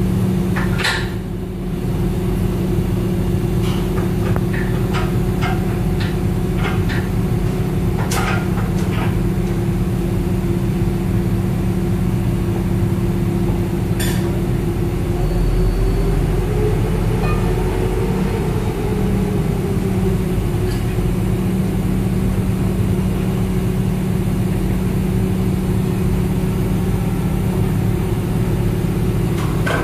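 Heavy engine running steadily, rising a little in pitch for a few seconds just past the middle and settling back. A series of sharp metallic clicks and knocks in the first several seconds, and one more about halfway through.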